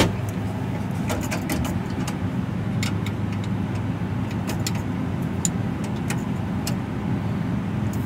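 Steady low machinery hum with scattered small metallic clicks and ticks as a wrench works the brass inlet fitting of a thermostatic expansion valve, and a sharper click at the very start.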